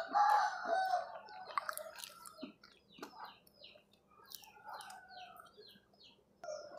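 A chicken calling loudly for about a second and a half at the start. Small birds then chirp in quick, short falling notes, with a few light clicks in between.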